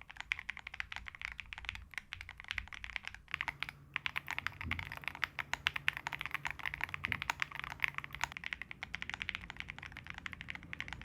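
Typing on an Owlab Hellcat Alice Mech 01 mechanical keyboard built with Keygeek Y2 linear switches on a PP plate, with plate, PCB and case foam: rapid, continuous keystrokes with a short pause a little over three seconds in. A poppy, thocky, controlled sound.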